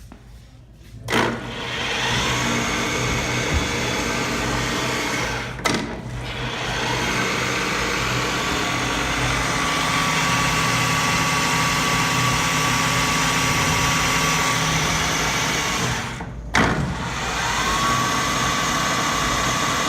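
Index 2 HP vertical milling machine running under three-phase power: it starts about a second in and runs steadily, dipping briefly twice. A steady high whine joins it about halfway through.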